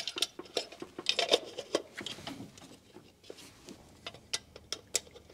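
Scattered light clicks and metallic taps with some rubbing, from screwdriver work on a newly installed HEI distributor as it is wired up and its parts are tightened down. The loudest click comes right at the start.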